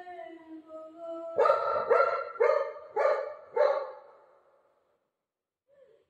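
Golden retriever giving a drawn-out whine, then barking five times about half a second apart.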